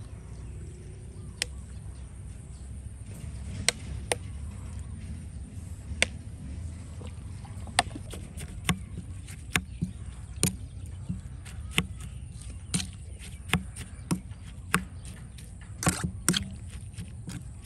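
Knife chopping on a cutting board: sharp single knocks, a few scattered at first, then settling into about one a second, over a low steady rumble.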